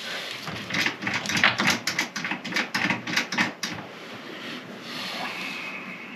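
Masking tape being pulled off the roll and torn to mark a fishing rod blank: a quick run of crackling clicks for about three seconds, then softer handling.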